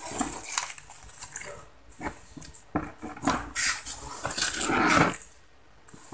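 Hands sweeping and scooping broken styrofoam pieces across a tabletop and into a plastic bowl: a broken run of crisp scraping and rustling strokes, dying away near the end.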